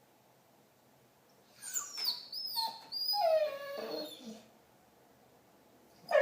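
Pit bull vocalizing: a string of whining, warbling calls that glide up and down in pitch and end in a falling groan, the Chewbacca-like noise of this dog. It starts about a second and a half in and lasts about three seconds, with a brief sharp sound near the end.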